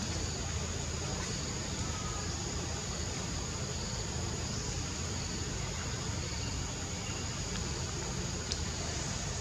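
Steady outdoor ambience: a constant high-pitched insect drone over a low rumble, with one faint click near the end.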